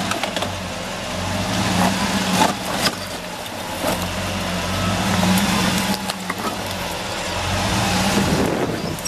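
Ram 2500 pickup truck's engine running at low speed, swelling and easing as the truck crawls over rocks on airless honeycomb tires. Several sharp knocks and crunches of rock under the tires.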